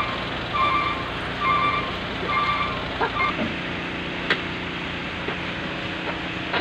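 Dump truck engine running while its reversing alarm beeps about once a second; the beeping stops about three seconds in and the engine keeps running, with a few short knocks.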